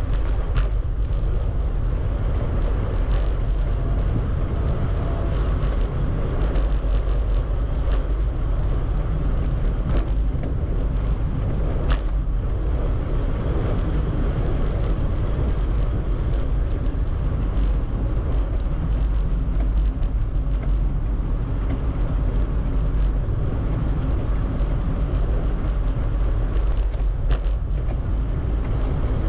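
Wind rushing steadily over the microphone while riding a bicycle, with a few sharp clicks scattered through it.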